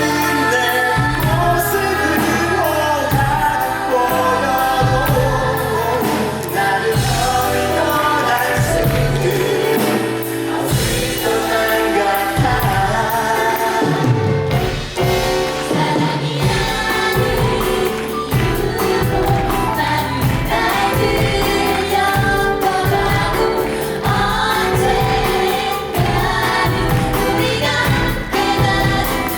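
Stage musical cast singing together in chorus over live band accompaniment.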